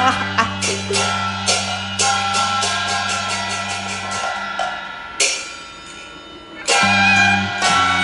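Cantonese song accompaniment ensemble playing an instrumental interlude between sung lines: held melody notes over a steady low bass, punctuated by percussion strokes. It thins out and drops quieter in the middle, then comes back in at full strength near the end.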